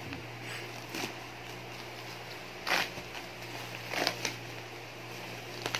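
Black plastic courier mailer being torn and pulled open by hand, a few short crinkling rustles of plastic about a second or so apart.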